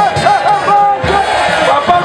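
Rally crowd chanting and cheering, with a loud high voice calling out over it in short wavering and drawn-out notes.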